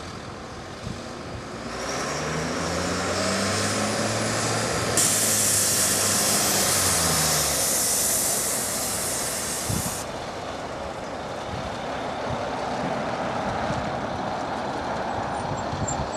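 Boeing 737-200's Pratt & Whitney JT8D jet engines on final approach, the noise swelling about two seconds in as the airliner nears. A loud hiss comes in abruptly about five seconds in and cuts off suddenly about five seconds later.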